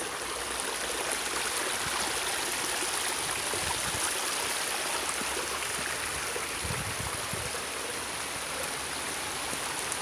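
Creek water flowing steadily over rocks, a continuous rushing babble.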